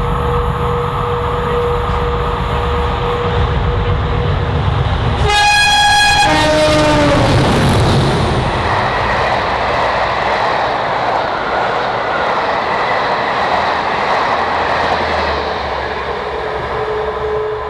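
Two English Electric Class 37 diesel locomotives run through at speed with their engines working, and sound the horn as they pass about five seconds in. The horn's pitch drops as they go by. Then comes the steady wheel-and-rail noise of the coaches rolling past, slowly fading.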